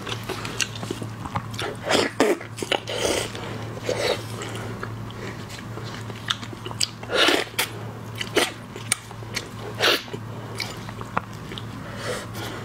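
Close-up eating of large red shrimp: wet mouth smacks and chewing, mixed with sharp clicks and crackles of shell as a prawn is peeled by gloved hands. A steady low hum runs underneath.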